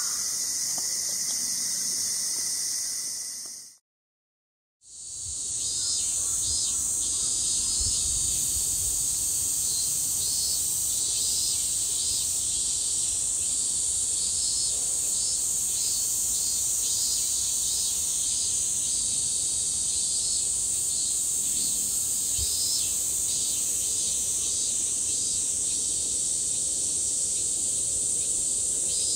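Steady, high-pitched chorus of insects, with faint repeated short chirps beneath it. It cuts out for about a second some four seconds in, then resumes.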